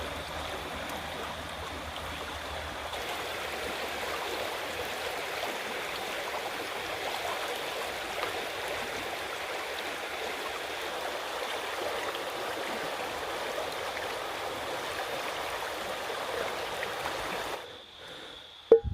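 River water rushing steadily over rocks. It cuts off near the end, followed by one sharp loud thump.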